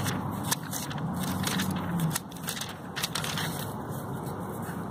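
Thin Bible pages being leafed through by hand: a run of short papery crackles and rustles.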